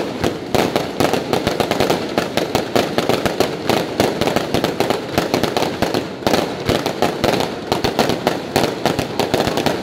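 Aerial fireworks display: a rapid, unbroken barrage of bangs and crackling pops from many shells bursting at once, several a second.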